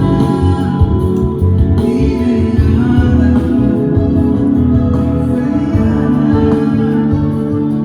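A small band playing a gospel worship song: electronic keyboard with organ-like sustained chords and guitar, with a voice singing over them.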